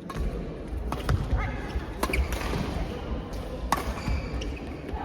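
Several sharp hits of a ball being struck during a rally, spaced about a second or more apart, over a steady low rumble.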